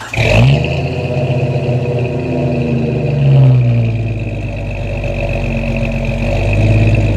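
Exhaust of a 1997 Jeep Cherokee's 4.0-litre inline-six, heard at the tailpipe with no catalytic converter fitted. The engine catches just as it starts and settles into a steady idle, with one brief rise and fall in revs about three seconds in. A thin high whine runs above the engine note.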